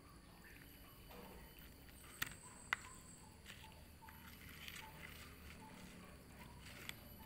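Cats eating fish from a plastic bowl: faint chewing and handling noises, with two sharp clicks a little over two seconds in.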